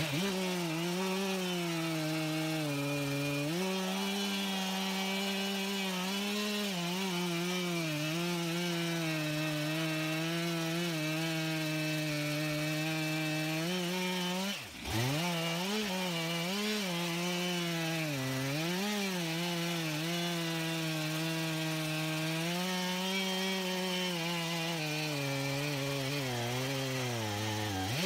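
Two-stroke chainsaw engine running steadily, its pitch wavering up and down as the load and throttle change. About halfway through, the pitch briefly drops sharply and climbs back.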